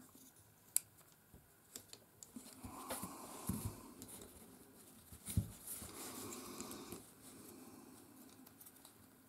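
A few faint sharp clicks and soft handling noise as a plastic cover is fitted onto the back of a Daiwa BG 3500 spinning reel.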